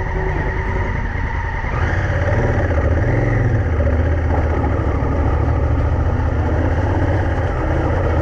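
Honda Africa Twin adventure motorcycle engine running on the move, a steady low rumble that gets louder about two seconds in.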